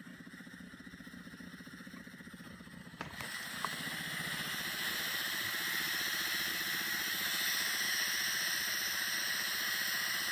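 Steam mop's pump giving a low, rapidly pulsing buzz. About three seconds in there is a click, and a loud steady hiss of steam starts and carries on.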